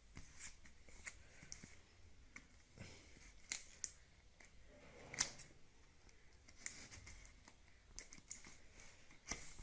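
Faint, scattered clicks and light scraping of a product box being handled and opened by hand, with one sharper click a little after five seconds in.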